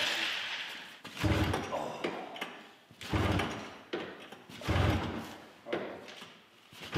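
Polaris XC700 snowmobile's two-stroke engine being pull-started with its recoil rope: three hard pulls about a second and a half apart, with a fourth beginning at the end. Each pull spins the engine briefly without it catching.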